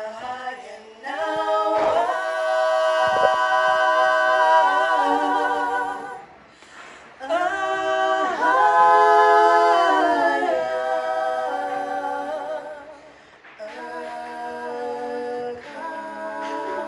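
A cappella vocal harmony: several layered voices singing long held chords, with brief breaks between phrases.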